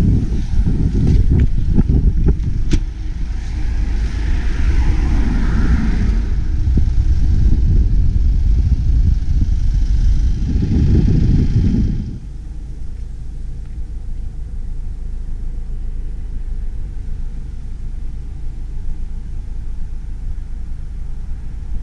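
Low rumble of wind buffeting the camera microphone, gusting unevenly, with a few sharp clicks of the car door being opened near the start. About twelve seconds in it drops to a quieter, steadier low rumble.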